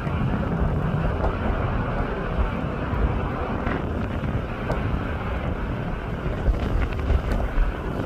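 Strong wind buffeting the microphone over the steady roar of an airliner's jet engines as it climbs away after takeoff, with a few sharper gusts near the end.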